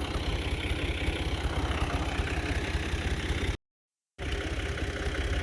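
Tractor engine idling steadily, with a low, even pulsing. The sound cuts out completely for about half a second, about three and a half seconds in, then resumes.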